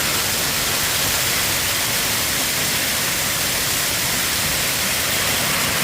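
Torrential rain driven by strong storm wind, a steady dense rush of noise with no separate hits standing out.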